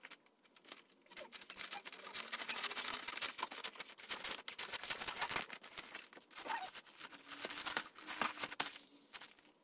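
Wrapping paper crinkling and rustling as it is cut with scissors and folded around a plastic-bagged parcel, starting about a second in.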